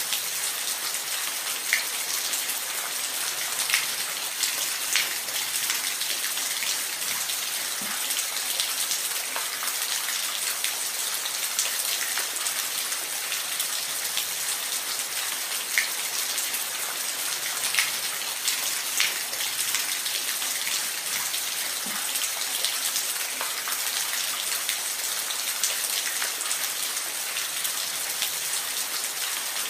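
Steady rain: a constant hiss with scattered louder single drops ticking on a surface.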